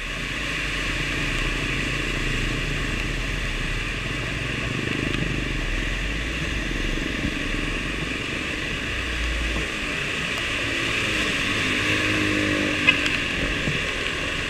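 KTM 390 Adventure's single-cylinder engine running steadily in low gear as the motorcycle wades through flood water, under a constant hiss of water spray and rain. A single sharp click comes near the end.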